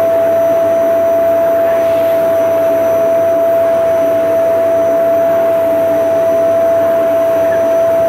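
Vacuum cleaner running steadily, its motor giving a constant, unchanging whine over an even noise.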